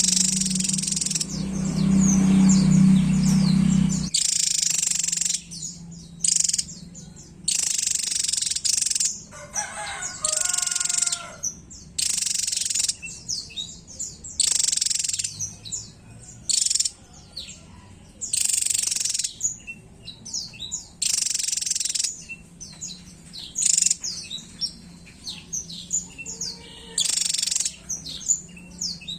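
Javan tesia singing: repeated high-pitched phrases of about a second each, made of quick, sharp notes, between shorter chirps. A low hum lies under the first few seconds.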